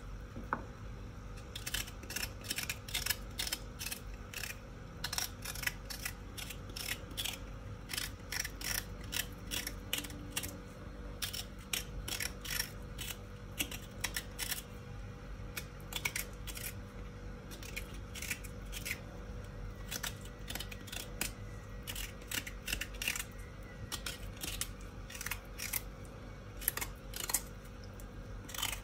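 A small kitchen knife scraping and peeling the knobbly skin off a Jerusalem artichoke, in short, irregular strokes about one or two a second.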